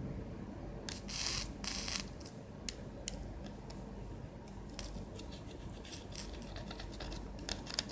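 Soldering work on a fluxed circuit board: two short scratchy hisses about a second in, then scattered light ticks and scrapes of the tool on the board.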